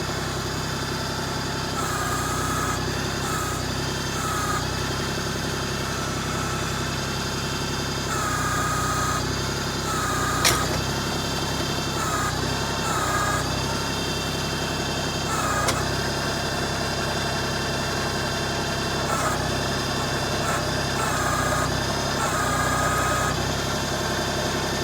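LS MT125 sub-compact tractor's diesel engine running steadily at low revs while the tractor is backed up to hook up a load. A higher whine comes and goes every few seconds, and there is one sharp clank about ten seconds in.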